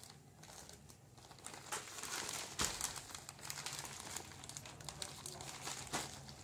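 Plastic courier mailer bag crinkling as it is handled and slit open with a small knife, with one sharp click about two and a half seconds in.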